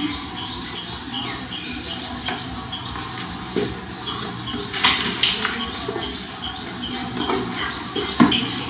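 Kittens wrestling and scrambling on a foam play mat and a plastic toy: soft scuffs and a few sharp knocks, the loudest about halfway through and near the end. A bird chirps over and over in the background, two or three short chirps a second.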